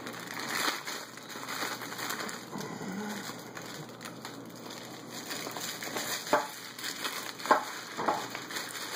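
Clear plastic parts bag crinkling and rustling as hands pull it open. A few sharp clicks come in the second half.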